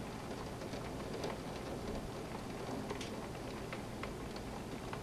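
Rain falling steadily, with irregular close drips tapping a hard surface.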